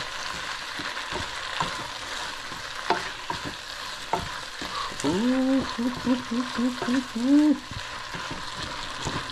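Sliced andouille sausage with chopped onions and peppers sizzling in a nonstick pan while a slotted plastic spoon stirs through it, with light scraping clicks. About five seconds in, a man hums a few short low notes, ending on a longer one.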